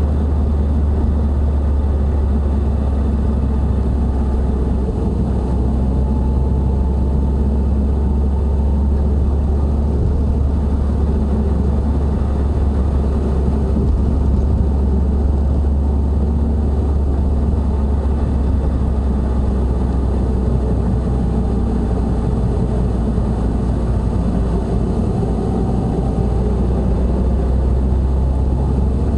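Subaru WRX STI heard from inside the cabin while driving: a steady low drone over road noise, coming from the front of the car, which the owner takes to be a worn front hub bearing.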